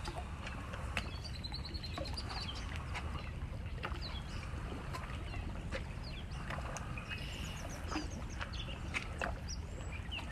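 Birds chirping and calling, with many short high notes and quick rising and falling whistles, over a steady low outdoor rumble.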